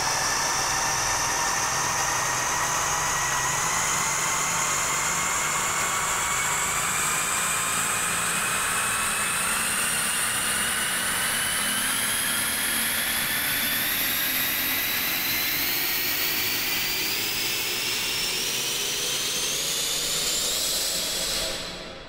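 Long cinematic riser sound effect: a steady wash of noise with several tones gliding slowly upward in pitch the whole way through, fading out at the very end.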